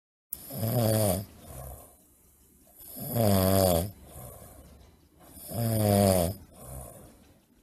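Loud snoring: three long, droning, slightly wavering snores about two and a half seconds apart, each followed by a softer breath out.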